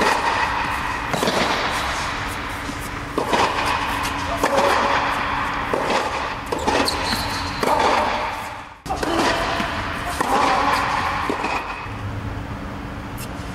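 Tennis balls struck with a racket and bouncing on a hard indoor court, a sharp hit every second or two, echoing under the fabric air dome. The sound drops out briefly about two-thirds of the way through, then the hits resume.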